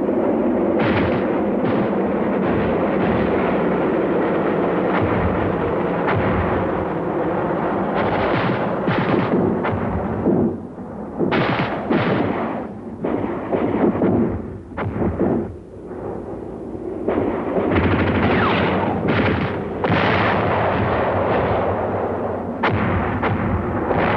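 Battlefield sound of gunfire and artillery: a dense, continuous run of shots and heavier booms. It thins out in a few short lulls around the middle, then turns heavy again.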